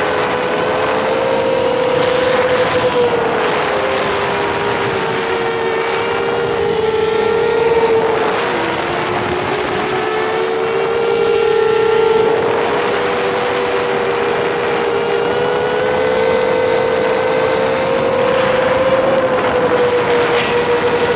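Motors and 7-inch propellers of a GEPRC Elegant FPV quadcopter whining in flight, heard from a camera mounted on the drone, with a rushing haze of wind and propwash over the microphone. Two close tones waver with the throttle and dip briefly about eight seconds in.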